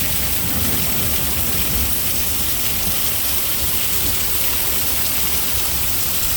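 Heavy storm rain pouring down in a steady rush, with water spilling off a roof edge that has no gutters.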